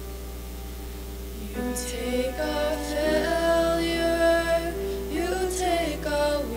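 Worship song performed by a group of young women's voices over piano accompaniment. Only the accompaniment plays at first, and the voices come in about a second and a half in.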